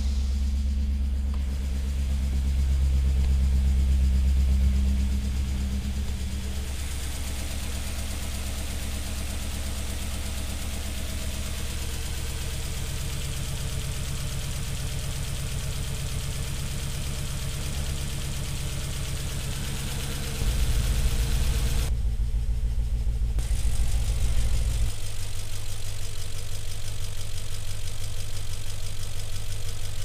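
BMW M62 V8 idling on its first start after new timing chain guides and a valley pan gasket, running with a misfire on cylinder 3 but no valve-bending noises. The low idle note shifts a few times, deepening and getting louder about two-thirds of the way through.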